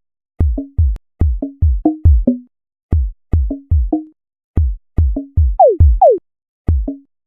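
Electronic drum-machine-like sonification of the Introsort algorithm: irregularly spaced synthesized hits, each a deep thump with a short pitched tone. Two hits near the end glide down in pitch, and the sound stops about half a second before the end.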